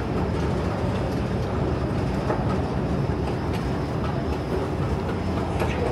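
Steady low rumble of a busy railway station waiting hall, with a few faint clicks and taps scattered through it.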